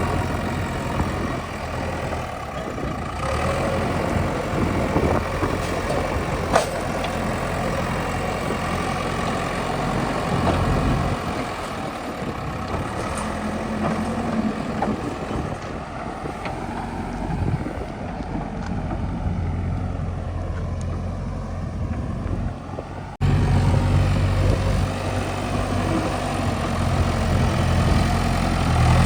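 Heavy diesel engine running steadily with a low, even drone, and a single sharp click about six seconds in. About 23 seconds in the sound changes abruptly to a louder, steadier engine.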